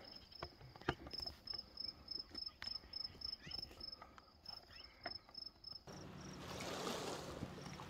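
A cricket chirping steadily: short high chirps at one pitch, about three to four a second, with a few faint clicks. About six seconds in the chirping stops and a broader steady hiss takes over.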